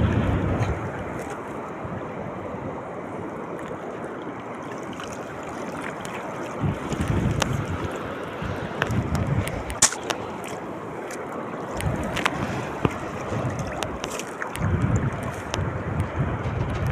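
Wind buffeting the microphone over the wash of sea water, with gusts swelling toward the end. Scattered sharp clicks and knocks come through the middle stretch.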